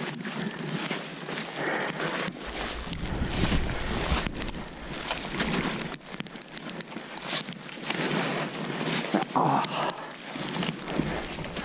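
Snowboard riding through deep powder snow: a rough, uneven swishing hiss of snow spraying against the board and rider, with gusts of wind rumbling on the microphone.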